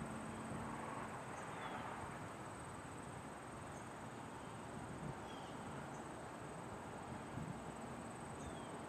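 Insects trilling steadily in a high, finely pulsing tone over faint wind noise. A faint low hum from the distant approaching diesel freight locomotive sits underneath, with a few brief bird chirps.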